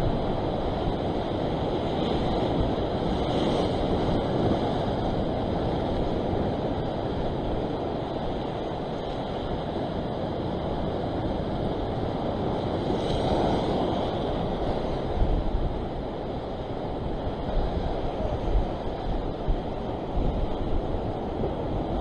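Sea surf washing against a rock ledge, a steady wash that swells about three seconds in and again around thirteen seconds. Wind buffets the microphone with low rumbles in the second half.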